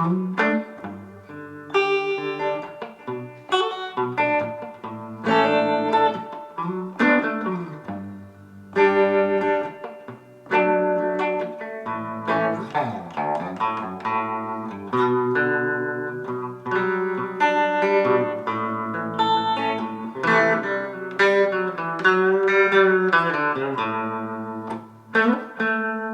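Instrumental break in a song, led by guitar playing a run of picked notes and ringing chords, with no singing.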